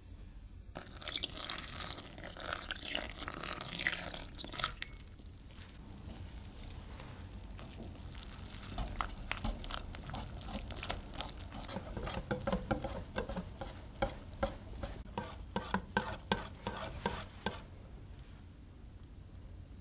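Milk poured into a glass mixing bowl onto flour and egg for a few seconds, then a wire whisk beating pancake batter, clicking against the glass in a quick rhythm that stops near the end.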